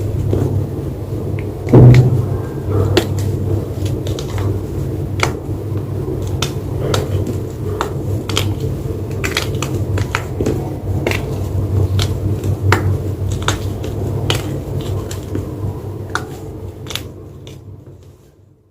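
White gym chalk crunching and crumbling close to the microphone, with many sharp crackles over a low rumble and one loud crunch about two seconds in. It fades out near the end.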